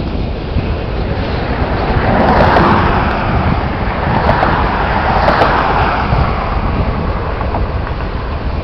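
Freight cars (covered hoppers and boxcars) rolling past on the rails: a steady rumble of wheels on track that swells twice, with wind buffeting the microphone.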